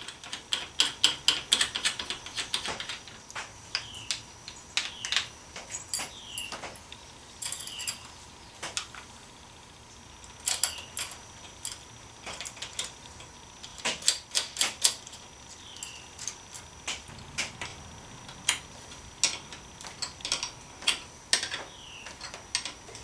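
Hand tools and small metal parts clicking and clattering in irregular quick runs, with a few short falling squeaks, as a motorcycle turn signal is unbolted and removed.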